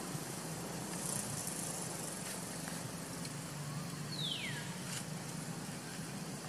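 Outdoor ambience: a steady hiss over a low, even hum, with one short call that slides down in pitch about four seconds in.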